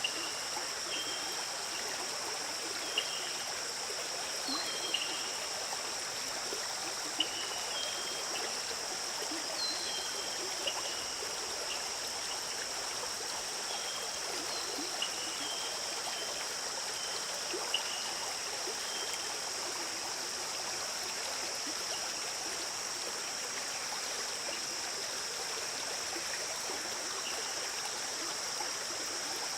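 A stream flowing and trickling steadily, under a steady high-pitched drone, with short high chirps scattered through the first two-thirds.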